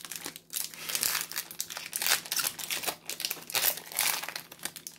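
Plastic-foil Magic: The Gathering booster pack wrappers crinkling in a dense, irregular crackle as packs are handled and opened.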